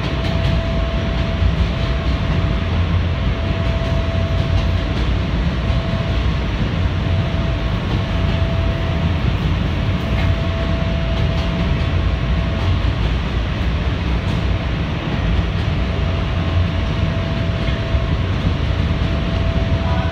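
R160 subway train running at speed on elevated track, heard from inside the front car: a steady rumble of wheels on rail, with a steady whine that comes and goes.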